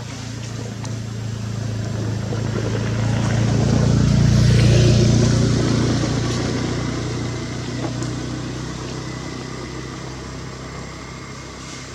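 A motor vehicle passing by: its engine and road noise swell to a peak about five seconds in, then fade away.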